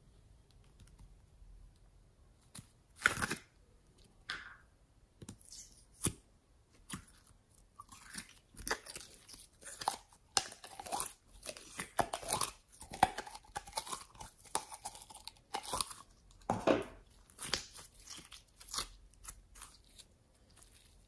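A thin plastic cup crinkling and clicking as it is squeezed, with sticky crackles of glossy slime pulling out of it. The crackles come irregularly: sparse at first, then thick and busy through most of the second half.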